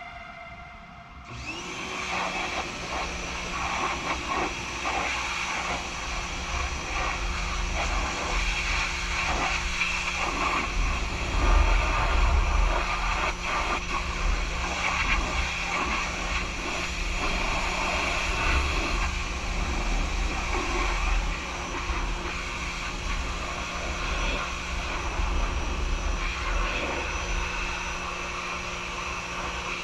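Pressure washer running at a steady speed, with the hiss and spatter of its water jet rising and falling as it is played over the machine. It starts about a second and a half in.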